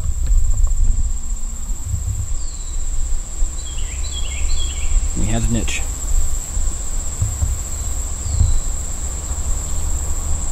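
Insects trilling in one steady, unbroken high-pitched tone, with a few short falling chirps over it.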